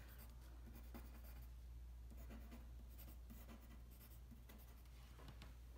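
Pencil scratching on paper in many short, quick strokes, faint, as small spikes are drawn on a cactus.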